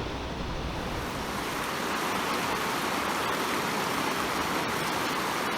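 Steady rush of river water, a little louder about two seconds in.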